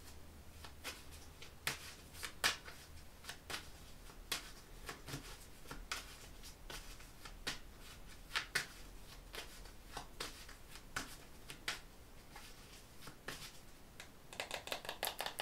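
Tarot cards being shuffled by hand: irregular soft card clicks and slaps, with a quick run of clicks near the end.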